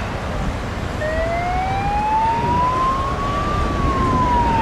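Emergency vehicle siren sounding a slow wail: it starts about a second in, rises in pitch for a couple of seconds, then falls again. Under it runs the steady rumble of motorway traffic.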